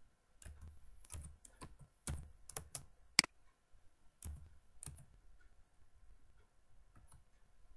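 Typing on a computer keyboard: irregular keystrokes, with one sharper, louder click about three seconds in, then the keys fall quiet for the last few seconds.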